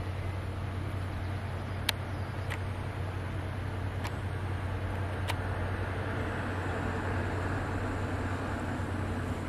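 Distant Lyd2 diesel locomotive of a narrow-gauge forest railway running as it approaches, a steady low hum under outdoor noise that grows a little louder about six seconds in. Four short sharp clicks in the first half.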